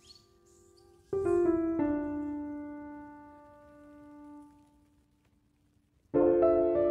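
Background piano music: a group of notes is struck about a second in and slowly dies away, and a new run of notes starts near the end.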